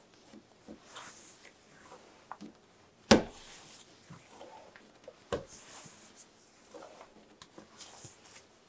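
Hands kneading pumpkin bread dough on a countertop: soft rubbing and swishing of palms working the dough, with two dull thumps about three and five and a half seconds in, the first the loudest.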